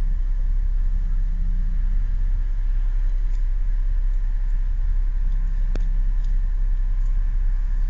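Steady low rumble of a car heard from inside the cabin, with a single short click a little under six seconds in.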